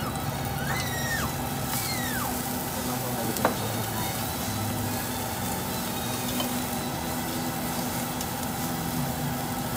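Slices of marbled beef sizzling on a hot yakiniku tabletop grill, a steady frying hiss. A sharp click of metal tongs on the grill comes about three and a half seconds in.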